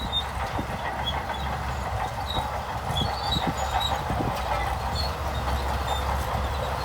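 Shantui crawler bulldozer working: a steady low diesel rumble, with its steel tracks clanking and rattling and a few heavier knocks.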